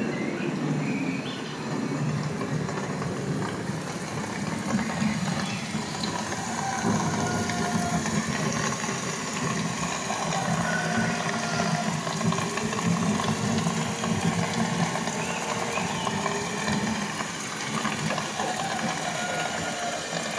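Steady rumble and hiss of a model railway exhibition hall, with faint distant voices mixed in.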